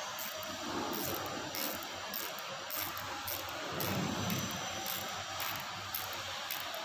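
Steady hiss of background noise with irregular faint clicks from metal hand tools working a thread insert into a tapped hole in a steel plate, and a short low rumble about four seconds in.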